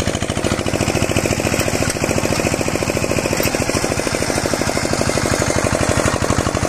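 Single-cylinder diesel engine on a homemade walk-behind tiller, running steadily with rapid, even exhaust beats as it drives the belt-driven rotavator.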